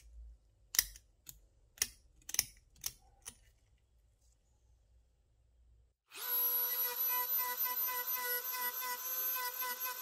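Several sharp metal clicks and taps as parts are handled during a workshop restoration of a rusty fishing reel. About six seconds in, a small electric power tool starts and runs with a steady whine and a fast even flutter.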